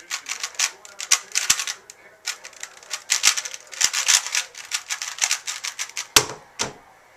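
Alpha 2 speedcube being turned very fast in a timed solve: a dense plastic clatter of layer turns in quick flurries with short pauses. About six seconds in come two louder thumps.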